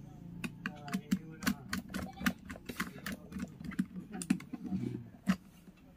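Irregular light clicks and taps, about three to four a second, as fingers handle red wires and push one into a socket terminal on a plastic switch board.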